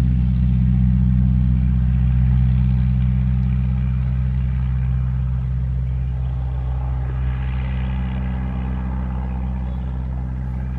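A Tiger Moth biplane's engine running steadily in flight, with an even, unchanging engine note that slowly fades as the aircraft flies away.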